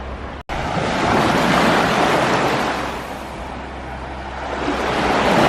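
Waves breaking and washing on a beach: the surf swells about a second in, eases off, and swells again near the end.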